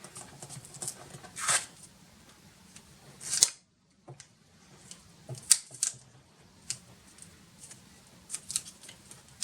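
Cardboard rustling and scraping as it is rolled up tightly around a wooden dowel rod, with a few sharp clicks and taps of handling.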